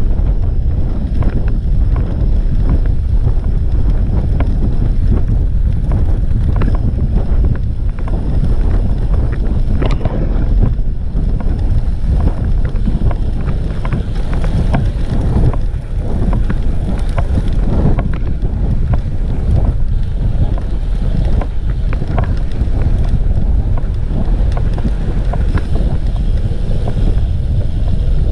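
Wind buffeting the microphone of a camera worn by a cyclist riding a road bike at speed: a loud, steady low rumble, with scattered light clicks and knocks throughout.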